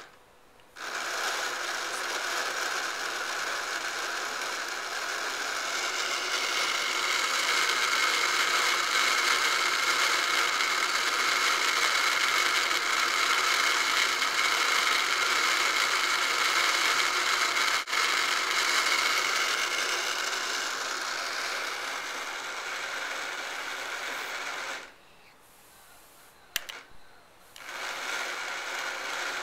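Switch-adapted battery toy's motor and gears whirring steadily, set going by a press of a big-button accessibility switch. It starts just under a second in, runs for about 24 seconds, cuts off, then after a click it starts again near the end.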